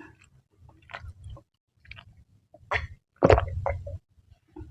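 Close-miked wet chewing and squishing of spicy mie nyemek noodles in short separate bursts, with a louder burst a little past three seconds in.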